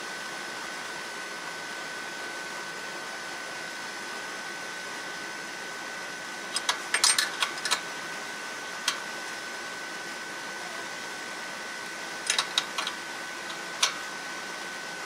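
Sharp metallic clicks and taps in two short clusters, from hand work on the oil pressure switch on a Generac standby generator's engine, over a steady hiss with a faint high-pitched whine.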